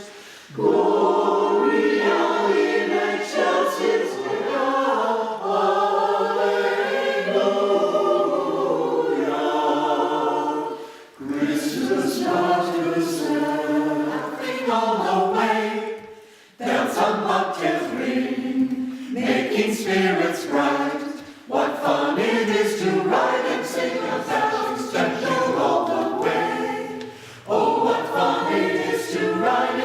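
Choir singing, phrase after phrase, with brief pauses between the phrases.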